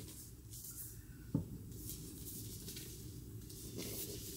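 A hardcover book being turned and handled, its paper cover rubbing and rustling against the hands in short scrapes, with one light knock about a second in.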